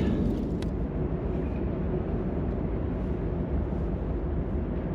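Steady low rumble with no distinct events, and one faint click about half a second in.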